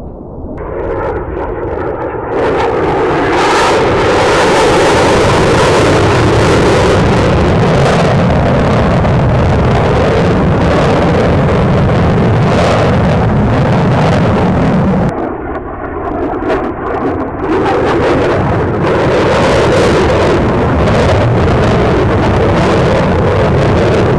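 F-35A Lightning II's jet engine roaring loud as the fighter flies past, the roar building over the first few seconds, easing for a couple of seconds past the middle, then coming back, with a sweeping, phasing tone as it passes.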